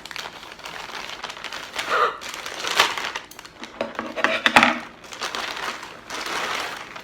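Parcel packaging crinkling and rustling as it is handled and opened, in irregular bursts, loudest a little after four seconds in.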